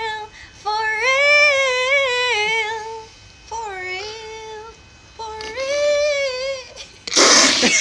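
A high female voice singing four slow, held phrases with vibrato and short pauses between them. About seven seconds in, a sudden loud noisy outburst breaks in.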